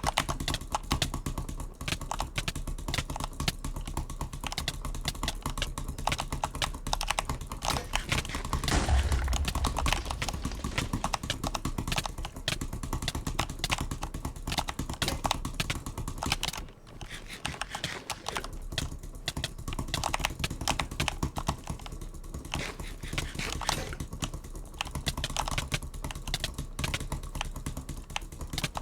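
A cheap butterfly clicker toy clicking rapidly and continuously, with a short break about two-thirds of the way through.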